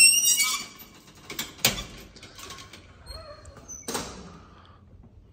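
Collapsible steel scissor gate of a vintage Otis elevator being pulled across: it squeals as it starts to move, rattles, and gives a sharp metal clank under two seconds in and another about four seconds in as it shuts.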